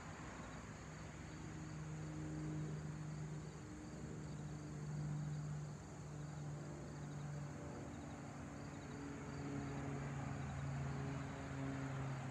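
The twin piston engines of a Cessna 402C flying overhead, a steady low drone that slowly grows louder as the plane passes.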